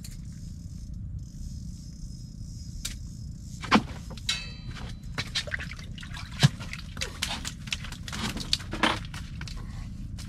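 Small fish being landed through a hole in the ice: water splashing and dripping, with scattered knocks and clicks from the line and gear, over a steady low rumble.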